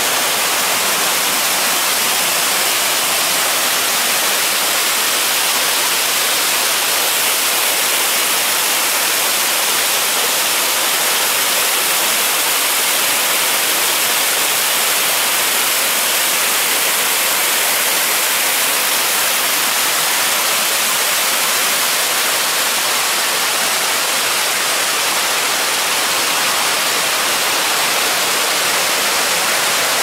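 Small waterfall cascading over rocks, a steady, loud rush of water, running high after rain.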